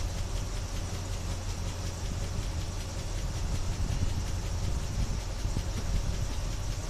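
1976 Chevy Blazer's engine running at a steady idle.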